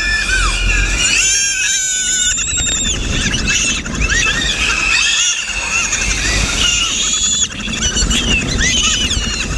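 Many birds calling at once: a dense chorus of quick rising and falling chirps and squawks, with a low rumble underneath.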